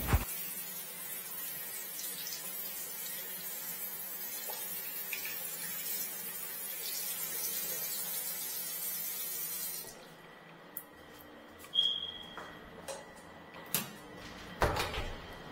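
Tap water running into a bathroom sink as a paint rag is rinsed and wrung under it: a steady splashing hiss. About ten seconds in, the tap is shut off and a few clicks and knocks follow.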